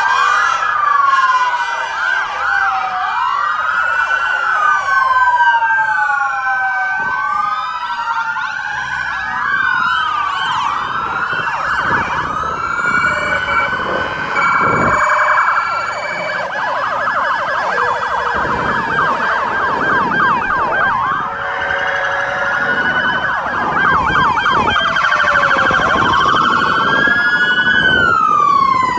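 Sirens of police cars and a fire engine driving past, several sounding at once. Slow rising-and-falling wails overlap, with a stretch of fast yelping through the middle.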